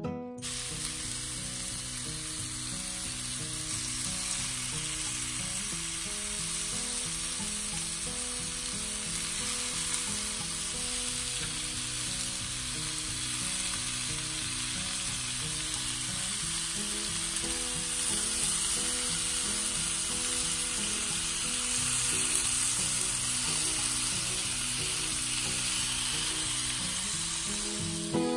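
Beef suya skewers sizzling steadily on an oiled, ridged stovetop grill pan, with faint music underneath.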